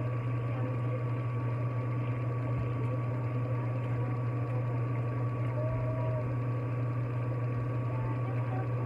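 Kitchen tap running steadily into a pan of water, over a steady low hum.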